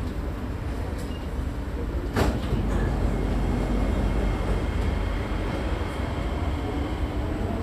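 Singapore MRT train running with a steady low rumble, one sharp click about two seconds in, and a faint steady whine from about three seconds in.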